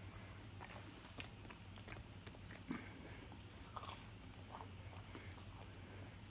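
A person biting and chewing pizza close to the microphone, with a few short crunchy bites scattered through, over a faint low hum.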